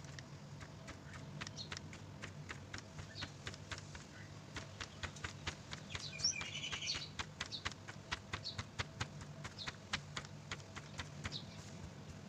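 A flat paintbrush dabbing and tapping on textured cardboard in quick, light, irregular ticks. A bird chirps briefly several times, with a louder warbling call about six seconds in, over a faint steady hum.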